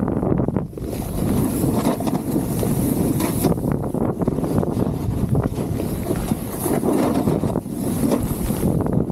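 Wind buffeting the microphone while a snowboard's base and edges slide and scrape over snow during a run, a steady loud rush with brief dips.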